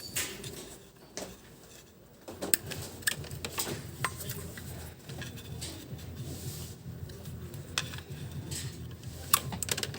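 Scattered clicks and light clatter of small parts being handled, as the terminals are pulled off a vacuum cleaner motor that has been taken out of its housing.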